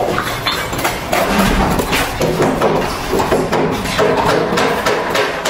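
Steel mason's trowel scraping and scooping mortar in a metal mortar pan, with short clicks and taps as hollow clay bricks are set and tapped into the mortar bed.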